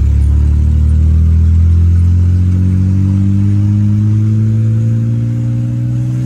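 A car engine heard from inside the cabin, its note rising slowly and steadily as the car accelerates.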